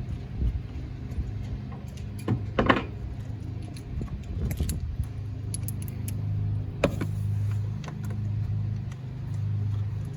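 Irregular metallic clicks and clinks of a wrench working an 8 mm bolt loose in a cramped spot in an engine bay, over a steady low hum.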